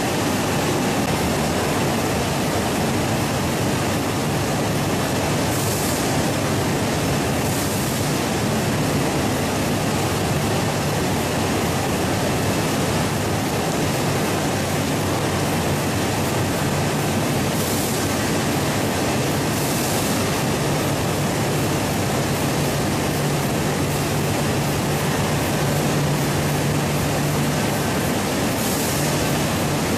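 Steady machinery noise of an automated poultry evisceration line: a continuous hiss over a low hum. A few brief, sharper hisses break in every several seconds.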